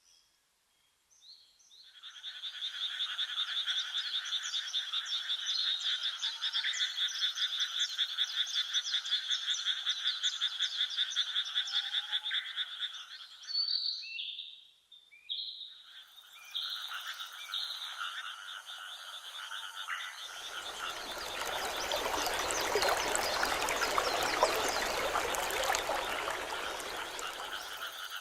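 A chorus of frogs croaking in a fast, even pulsing trill. It breaks off about halfway through, then starts again. In the last third a broad rushing noise swells up under it and fades.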